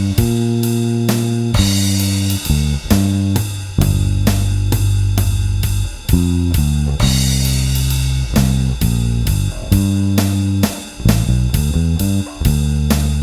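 Electric bass with a TV Jones Thunderblade neck pickup, run through a Seymour Duncan Studio Bass Compressor, playing a bass line of held, even notes over a drum kit. The drums keep a steady beat of about two hits a second with cymbals.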